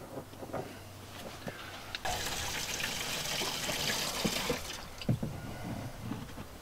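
Gasoline pouring from a plastic gas can into a fuel tank: a steady splashing fill that starts about two seconds in and lasts about three seconds, with a few light knocks from the can being handled before and after.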